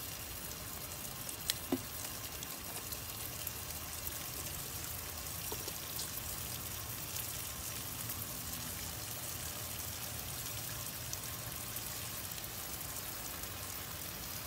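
Heavy rain pouring down in a steady hiss, splashing on an outdoor table, with two short clicks about a second and a half in.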